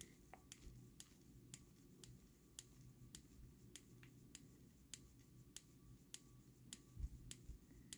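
Faint, evenly spaced clicks about every half second from a small screwdriver turning a screw into a 3D-printed plastic part, with a soft handling bump near the end.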